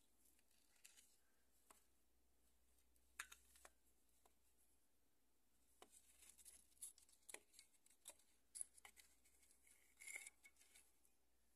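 Faint, scattered clicks and short scrapes of a broken plastic cooling-fan resistor module being handled and turned in a gloved hand. The clicks come more often in the second half.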